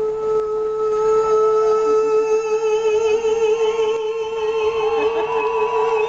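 A singer holds one long high note through a concert sound system, the vibrato growing wider from about two seconds in.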